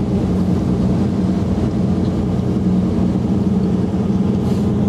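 Tour coach's engine running with a steady low drone, heard from inside the passenger cabin as the bus climbs a mountain road.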